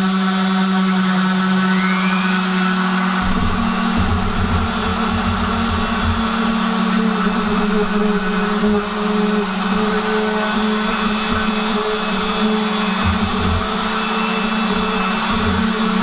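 A Makita random orbital sander runs on plywood with a steady motor hum. About three seconds in, a cheap Hofer (Aldi) Workzone orbital sander starts sanding beside it on the same panel, adding a rough low rumble that rises and falls.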